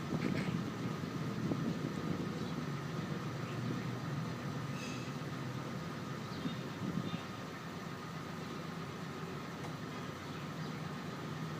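Feral kitten making a low, steady rumbling growl as it eats, with a few faint ticks over it.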